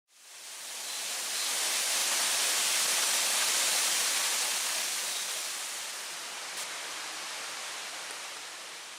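Waterfall rushing: a steady, hissing rush of falling water that swells in over the first couple of seconds and eases a little after about five seconds.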